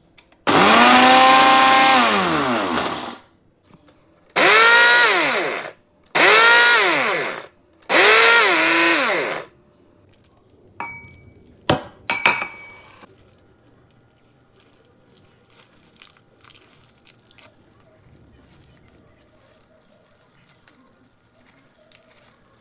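Countertop blender pulsed four times to grind digestive biscuits into crumbs, its motor pitch sinking during each pulse. A few sharp knocks follow about halfway through.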